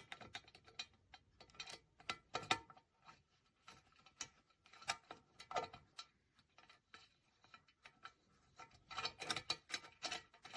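Irregular small metallic clicks and taps of a grill pan's handle, screw and spacers being fitted and lined up by hand, with a quicker run of clicks near the end.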